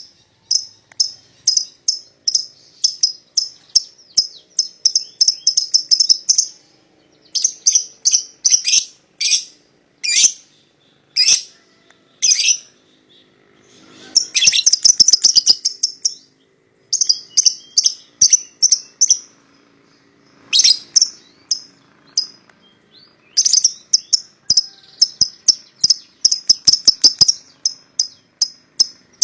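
A pair of young lovebirds chirping in fast runs of high, clipped notes, each run lasting a second or two with short pauses between, and a few single sharp calls in the middle.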